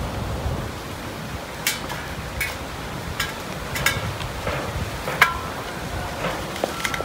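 A crowd of cats chewing raw chicken: wet chewing with sharp crunches and clicks about every second.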